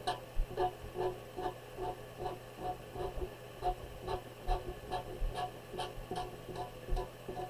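A felt-tip marker drawing short lines on paper, a quick rhythmic run of strokes at about two to three a second, each with a faint squeak of the tip.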